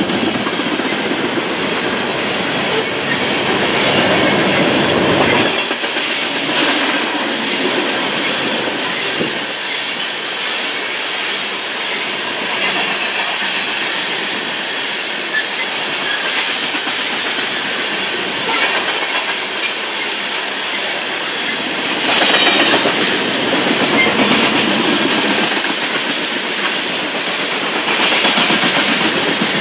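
Freight train of open-top coal hopper cars rolling past at trackside, a steady clatter of wheels on the rails that swells louder a few times. A deep rumble underneath drops away about five seconds in.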